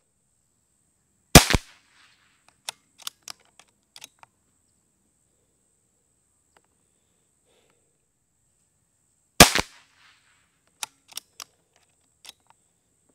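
Two shots from a Brocock Grand Prix S6 .22 PCP air pistol, about eight seconds apart, each a sharp crack. After each shot come four or five light clicks as the action is worked to chamber the next pellet.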